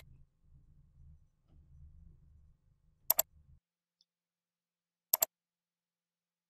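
Computer mouse button clicking: a quick double click about three seconds in and another about two seconds later, over a faint low hum that stops partway through.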